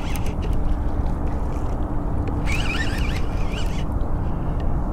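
Steady low rushing background noise, with a bird calling a few quick times about halfway through.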